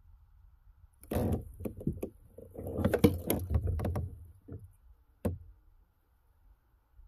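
Fishing tackle being handled in a kayak: a close run of knocks, clicks and rustling over about three seconds, then a few scattered taps and one last sharp knock.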